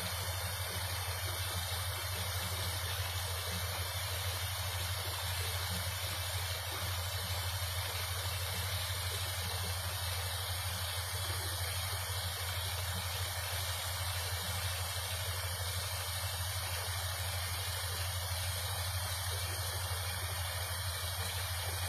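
Paddlewheel pond aerator running: its four paddle wheels churn and splash water in a steady rush, over a steady low hum.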